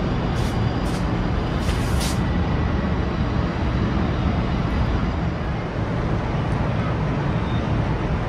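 Steady city road-traffic noise with a deep rumble of vehicles running, and a few short hisses in the first two seconds.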